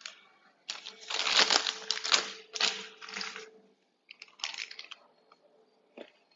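Crinkling of a clear plastic piping bag being handled and opened, in rustling bursts for about three seconds, then a shorter burst and a small click near the end.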